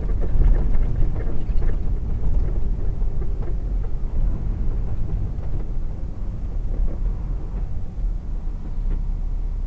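Vehicle driving slowly on an icy road, heard from inside the cab: a steady low rumble of engine and tyres that eases a little as it slows down.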